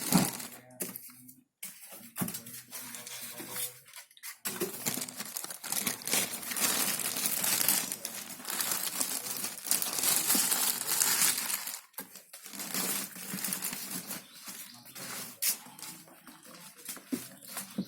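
Packaging wrap being handled and pulled off, an irregular crinkling and rustling with small crackles, heaviest in the middle stretch.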